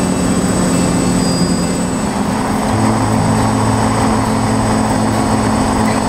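Multirotor FPV drone's electric motors and propellers droning steadily as heard from its onboard camera, with rushing air noise; the motor pitch shifts a little over two seconds in, a lower hum joining.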